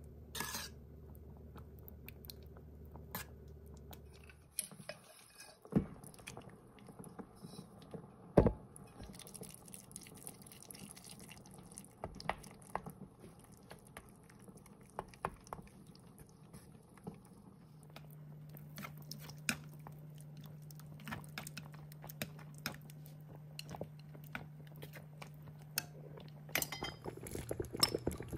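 Ladle and chopsticks clinking, knocking and scraping against a stainless steel pot while stirring thick rice congee, with scattered clinks throughout and two sharper knocks a few seconds in. A faint steady low hum runs underneath.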